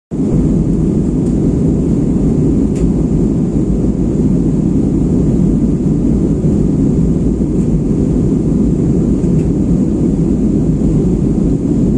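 Steady cabin noise inside an Airbus A320 airliner in flight: a low, even rush of engines and airflow, with a few faint ticks.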